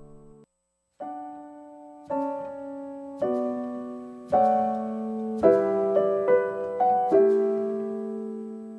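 Slow, gentle piano music: after a short pause, sustained chords struck about once a second, a few quicker notes midway, and a long final chord fading away.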